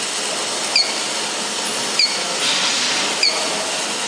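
Steady hiss of running machinery with a short high squeak repeating about every second and a quarter, and a brief louder hiss near the middle.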